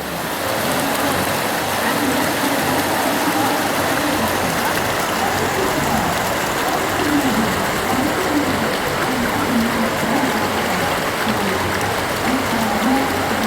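The Ganges river flowing: a steady, loud rush of moving water.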